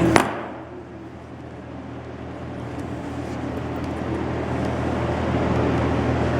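A single sharp click or knock just after the start, over a steady low mechanical hum that runs throughout.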